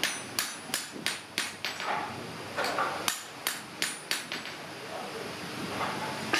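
Hand hammer striking an axe head on an anvil: quick sharp metal blows about two or three a second, in two runs with a pause of about a second between them, then fewer blows near the end.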